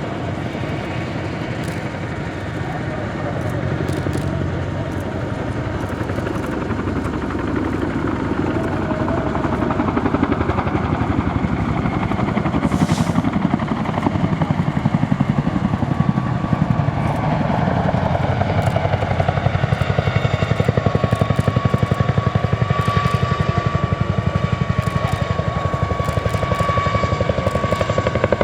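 Boeing CH-47J Chinook tandem-rotor helicopter flying, its rotors beating in a fast, steady chop that grows louder over the first ten seconds or so. A steady high whine joins about halfway through.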